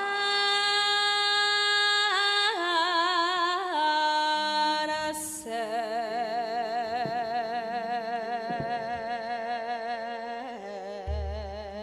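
A Javanese sinden, a female singer, sings solo into a microphone, holding long notes with a wide vibrato. Her pitch steps down a few times in the first four seconds. There is a short sharp knock about five seconds in.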